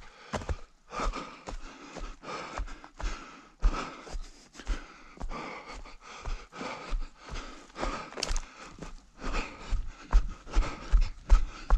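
A runner breathing hard, panting in steady rhythm, with footfalls thudding about two to three times a second.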